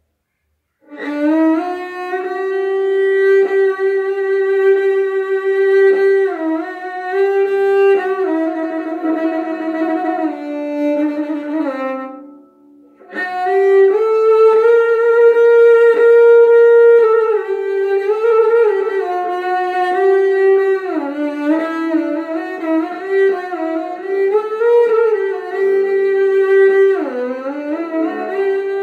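A bowed string instrument playing a slow melody of long held notes with slides between them. It starts about a second in, pauses briefly near the middle, then carries on.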